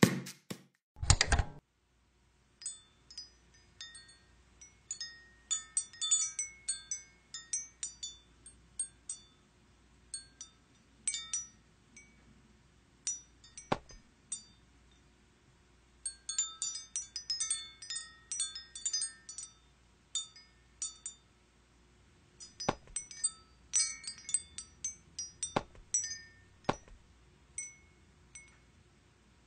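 Sparse tinkling chimes: short high pings in scattered clusters, with a few single knocks, one about halfway through and three more near the end.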